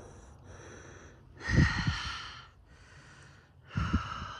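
Two short puffs of air hitting the microphone, each a low thud with a hiss: one about a second and a half in and one near the end.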